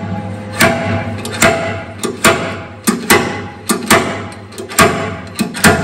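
Sharp metal-on-metal knocks, about ten of them, irregularly spaced with a brief ring after each: a steel hand tool striking the freshly MIG-welded steel of an armoured vehicle's hull fitting. A steady low hum runs underneath.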